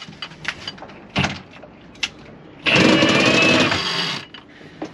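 Cordless drill driving a sailboat's cockpit winch to haul in a line up the mast. It runs once for about a second and a half, starting a little over halfway through, with a motor whine that bends slightly in pitch.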